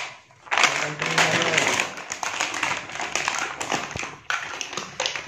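Clear plastic toy packaging crinkling and rustling in hand as a bag is opened, with many small sharp crackles.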